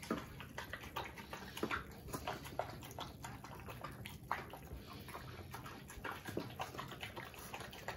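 A Rottweiler eating a soft mash of rice and paneer from a bowl, its jaws and tongue smacking in many small, irregular clicks.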